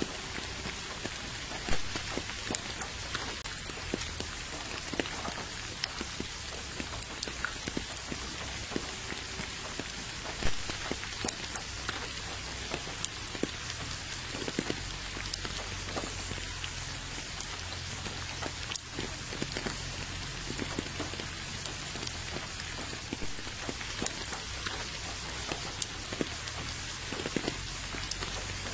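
Steady rain falling on a puddle and wet ground: an even hiss with many separate drop splashes, and a couple of louder drop hits about two and ten seconds in.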